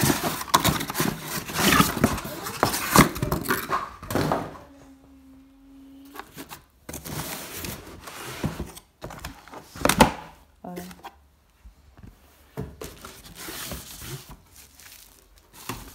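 Corrugated cardboard packing inserts being handled inside a shipping box: scraping, rustling and knocking as the pieces are pulled and shifted, with a sharp thunk about ten seconds in.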